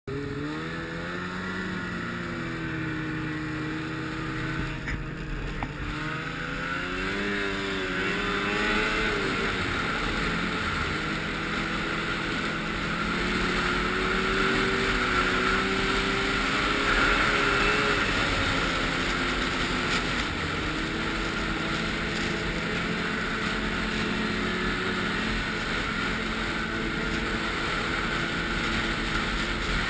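A vehicle engine running continuously, its pitch rising and falling as it speeds up and eases off.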